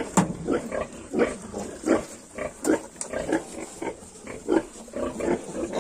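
Yorkshire pigs grunting during nursing, as the piglets suckle at the sow: a steady run of short grunts, about three a second.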